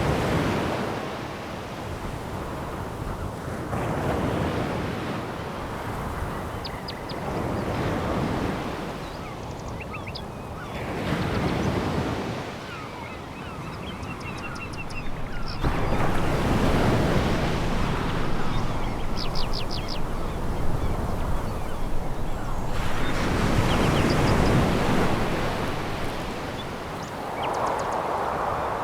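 Sea waves breaking on a pebble beach, each surge swelling and drawing back every few seconds, with the longest and loudest surge past the middle. Brief high clicks of stones rattle in the quieter moments between surges.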